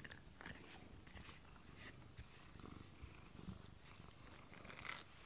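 Domestic cat purring faintly, a low rumble, with a few soft rustles.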